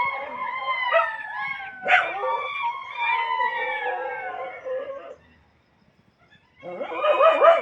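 A chorus of several canines howling together, many wavering, falling howls overlapping. It cuts off about five seconds in and starts again about a second and a half later.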